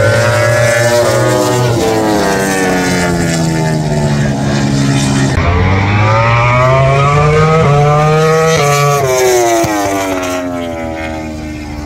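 Grand Prix racing motorcycle engines at high revs passing the trackside. The first pass falls in pitch as the bike goes by. About halfway through another bike accelerates, rising in pitch with short breaks at each upshift, then falls in pitch and fades toward the end.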